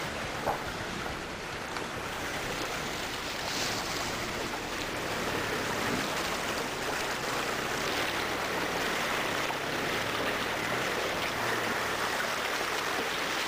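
Steady rush and splash of river water around the tyres of a 4x4 as it fords a shallow, rocky river.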